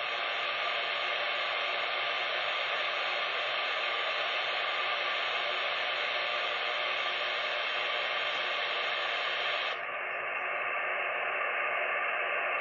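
Steady static hiss from a CB radio receiver's speaker, with no voice on the channel. About ten seconds in the hiss turns duller and a little quieter.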